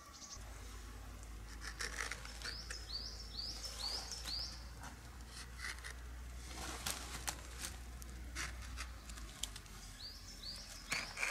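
A knife scoring and peeling birch bark from a fallen birch trunk: irregular scrapes and sharp clicks. Twice a quick run of short, high, squeaky notes sounds, five of them about two seconds in and three near the end.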